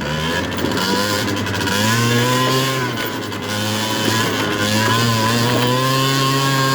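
70cc big-bore two-stroke scooter engine revving under load, climbing in pitch about two seconds in, easing off briefly around three seconds, then pulling back up and holding at steady high revs.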